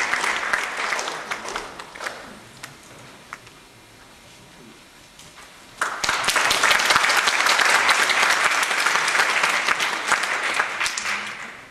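Audience applauding in a large hall. The clapping dies away over the first couple of seconds, then a second round breaks out suddenly about six seconds in and tapers off near the end.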